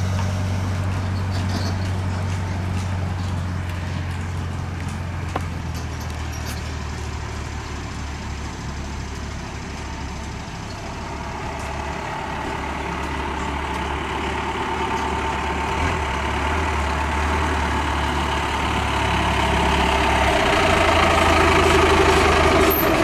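Chance Sunliner parking-lot tram train with its tow-vehicle engine running: a steady low drone that grows louder as the tram approaches and pulls up close near the end.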